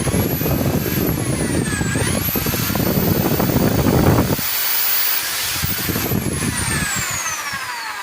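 Bosch GSB 500RE 500-watt corded impact drill running free, its motor whine rising and falling with trigger pressure: it dips briefly, climbs to full speed, then winds down steadily as the trigger is eased off. A low rattle runs with it through the first half and stops about four seconds in.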